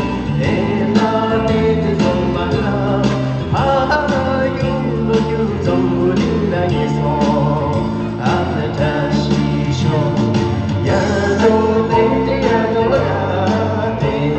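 A solo voice singing a Tibetan song over instrumental backing with a steady beat.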